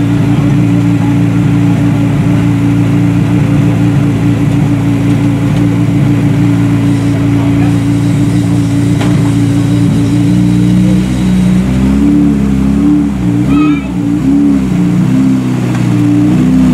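Skoda Fabia RS Rally2's turbocharged four-cylinder engine idling steadily. From about twelve seconds in it is blipped up and down in short revs as the car moves off.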